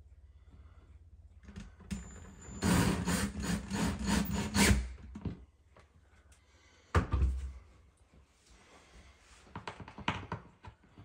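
Cordless drill running for about two seconds as it bores a pilot hole into a drywall ceiling, followed a couple of seconds later by a single sharp knock. Near the end, a screw hook scrapes as it is twisted by hand into the hole.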